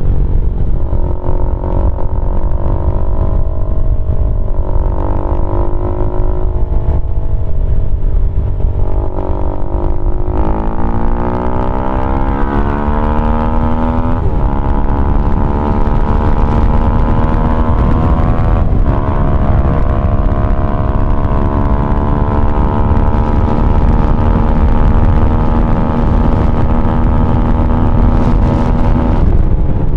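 Keeway RKF 125's single-cylinder engine running loud through a GPR Deeptone exhaust with the dB killer removed, under way. The engine pitch climbs from about a third of the way in, with gear changes at two breaks, then holds fairly steady and drops off near the end.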